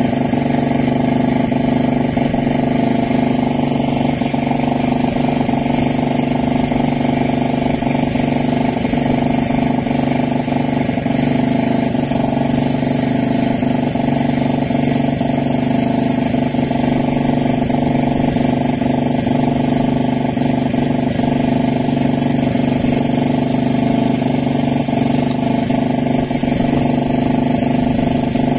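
An engine running steadily at one constant speed: an even, unbroken drone whose pitch does not change.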